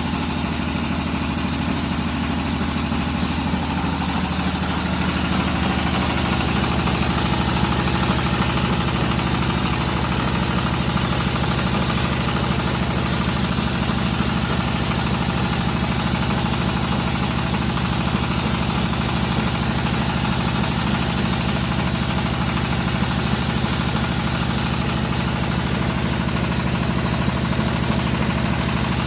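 Extruder machine running steadily with a droning, engine-like hum and vibration. About five seconds in its tone shifts and it gets a little louder.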